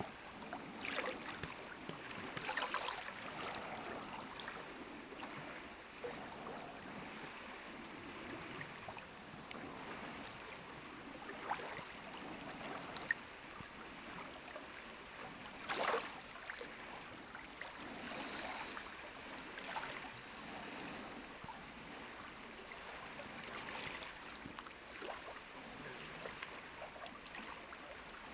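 Small lake waves lapping and splashing against flat shore rocks in irregular washes, with one sharper splash a little past halfway.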